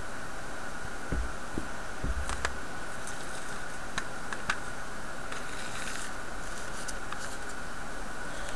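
Small sharp clicks and light taps of padlock parts and pins being handled on a work surface, over a steady background hiss. A few soft knocks come in the first two seconds, then a handful of clicks around two and a half and four seconds in.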